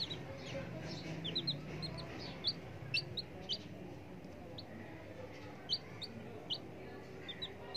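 Baby chicks peeping: short high cheeps, singly and in quick little runs, over a low steady background hum.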